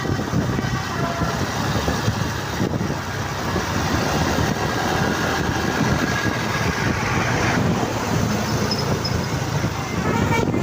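Road traffic with a bus engine running: steady engine and road noise.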